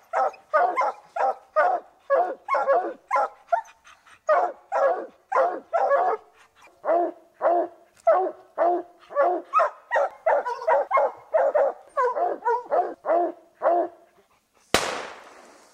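Hunting hound barking steadily at a mountain lion it has treed, about two to three barks a second, with a short gap about four seconds in. The barking stops, and a single sharp, loud bang comes near the end.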